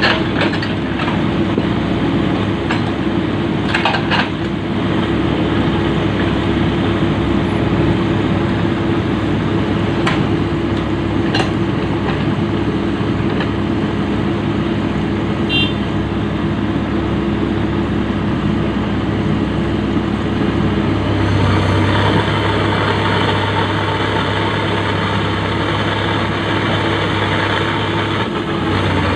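Komatsu PC-200 excavator's diesel engine running steadily, with a few metallic clanks in the first half. About two-thirds of the way in the engine note gets heavier, as if taking load.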